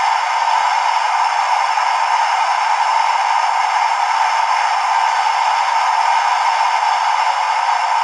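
Class 43 HST power car fan sound from a DCC sound decoder, played through the small speaker of an OO gauge model: a steady rushing hiss with no bass.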